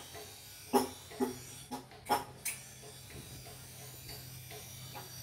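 Hammer blows on hot metal at a village blacksmith's forge: five sharp, ringing strikes about half a second apart in the first half, then a few fainter ones, over a low steady hum.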